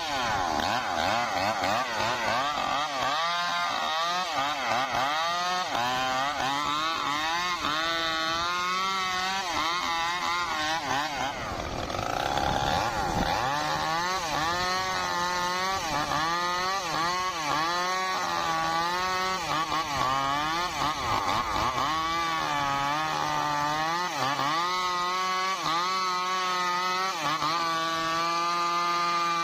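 Stihl MS 382 two-stroke chainsaw running at high revs through trembesi (rain tree) wood, its pitch repeatedly dipping and recovering as the chain bites. About eleven seconds in the revs fall briefly, then climb again.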